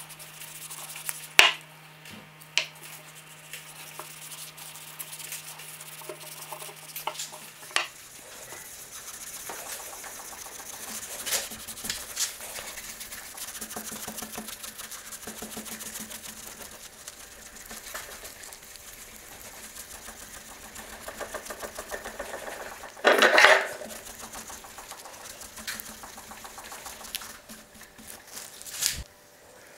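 Cloth and brush rubbing finish into a wooden ash axe handle, a soft scrubbing rustle with a few sharp knocks and crackles, the loudest a little over three-quarters of the way through.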